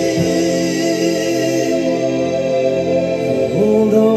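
A song with singing over long held chords, played through a homemade Bluetooth speaker built into a Fat 50 ammo can; the chord changes near the end.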